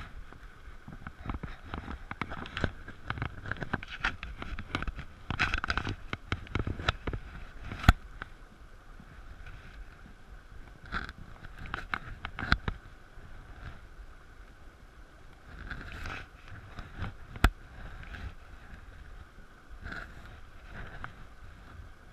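Steady rush of a shallow rocky stream, with close rustling and knocking as a fly rod and line are handled next to the microphone. Two sharp clicks stand out, about eight seconds in and again after seventeen.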